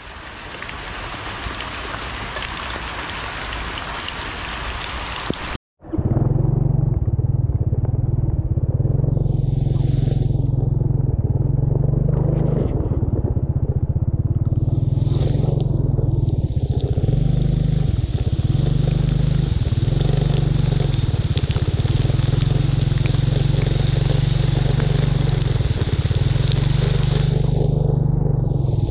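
A steady hiss that cuts off abruptly about six seconds in, followed by a loud, steady low motor drone.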